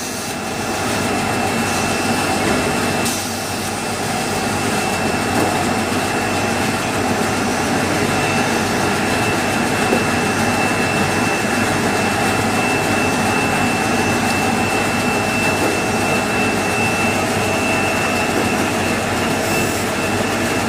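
Automatic band saw toilet paper roll cutting machine running steadily: a continuous mechanical hum with a thin, steady high whine over it. The level dips briefly about three seconds in.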